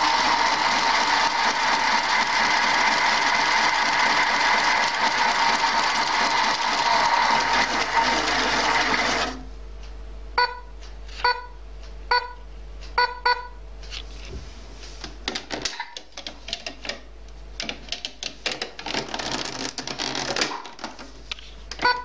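LIMO TOY toy washing machine running: its small battery motor whirs steadily with a steady electronic tone over it, then stops abruptly about nine seconds in. A run of about five short electronic beeps follows, then plastic clicks and handling as its buttons are pressed.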